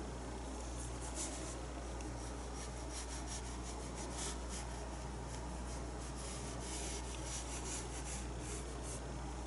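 Paintbrush loaded with acrylic paint making quick short hair strokes across the painting surface: an irregular run of soft, scratchy brushings.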